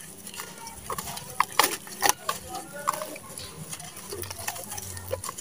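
Wet sand-and-mud lump squeezed and crumbled by hand into a basin of muddy water: a string of irregular wet crunches, squelches and small splats as the pieces break off and drop into the water.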